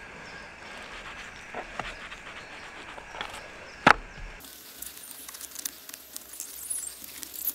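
A silver perch and filleting knife handled on a plastic cutting board: a few soft taps and one sharp click just before the halfway mark, over a faint steady hiss.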